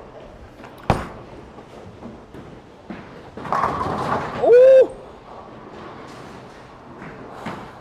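A Storm HyRoad bowling ball lands on the lane with a sharp thud about a second in. About two and a half seconds later the pins crash for roughly a second, followed by a short vocal exclamation.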